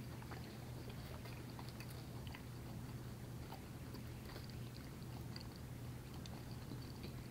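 Faint soft crackles and ticks of a Hostess fried cherry pie's pastry crust being broken open by hand, over a steady low hum.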